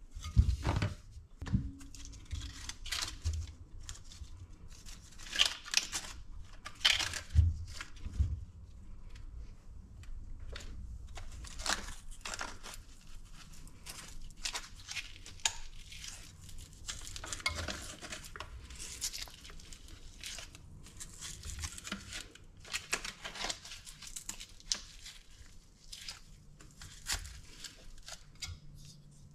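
Hook-and-loop battery straps being ripped apart and pressed closed again and again, in short rasping rips, with a few dull knocks of the drone frame against the wooden desk.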